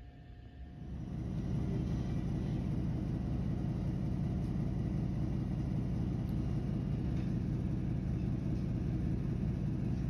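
A steady low rumble starts about a second in and holds at an even level.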